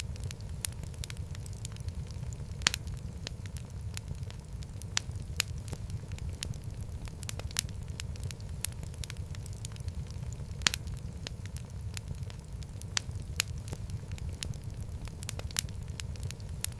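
Wood fire burning in a fireplace: a steady low rumble of flames with irregular sharp crackles and pops, the loudest snaps about a quarter of the way in and again past the middle.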